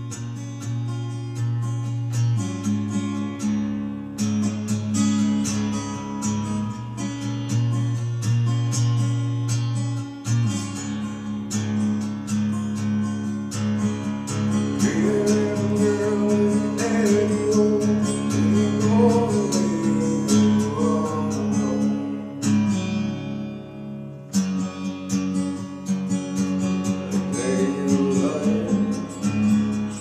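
Acoustic guitar strummed in steady chords. About halfway through a voice sings a melody over it for several seconds, and again briefly near the end.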